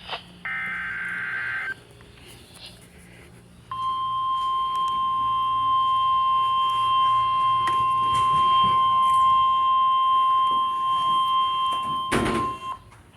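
Emergency alert on the radio: a brief warbling data burst of the EAS header, then a single steady, high alert tone held for about nine seconds, the weather-radio warning alarm announcing a new severe thunderstorm warning. A short crackle sounds just before the tone cuts off.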